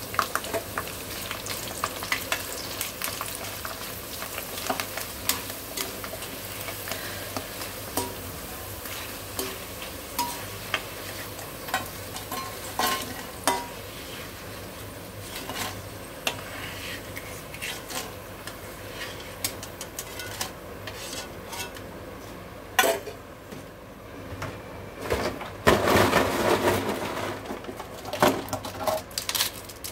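Chips deep-frying in hot oil in a steel kadhai, a steady sizzle, with scrapes and clicks of a metal skimmer against the pan as the chips are stirred and lifted out. There is a louder burst of crackling a few seconds before the end.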